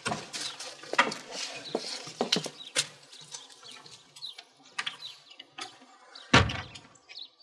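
Footsteps and shuffling on a hard floor as several people come in, then a wooden front door with glass panels is pushed shut with a heavy thud about six and a half seconds in.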